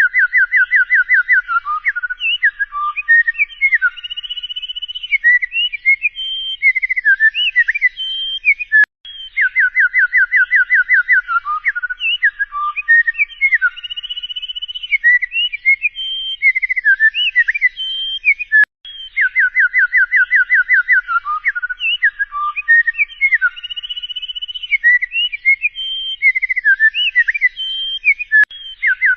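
Bird song that repeats as a loop about every ten seconds. Each round opens with a quick run of about fifteen clear, rising whistled notes, followed by varied whistles, slurs and short trills.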